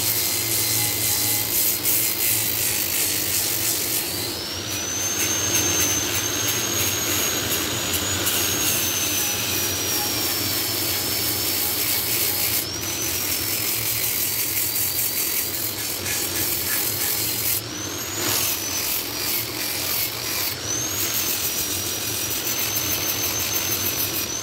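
Electric angle grinder with a sanding disc running against a wooden bowl's edge, a steady grinding rush under a high motor whine. The whine sags and climbs back several times as the disc works the wood.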